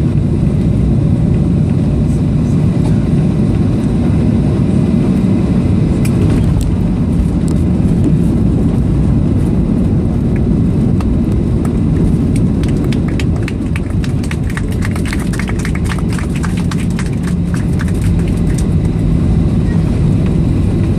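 Cabin noise of a Boeing 737-800 rolling down the runway just after landing: a loud, steady low rumble of the engines and the wheels on the runway. From about halfway through there is a spell of rapid rattling clicks.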